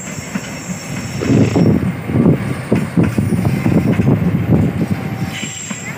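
Passenger train coaches rolling past, their wheels clattering irregularly over rail joints and points, with a thin high tone in the first second and a half.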